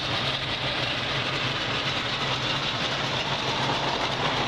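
Chevrolet V8 of a 1969 Camaro idling steadily, with a little cam action in its lope.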